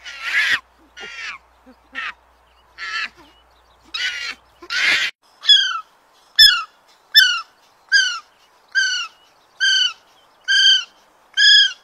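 Young macaque screeching in harsh, uneven calls for about five seconds. Then a bird calls one short, clear note over and over, a little more than once a second.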